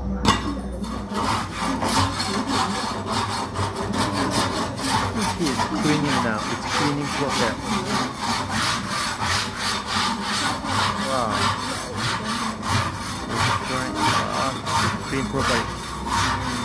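Coffee beans being stirred and scraped with a metal shovel in a large wood-fired roasting pan: a quick, steady, repeated scraping rasp.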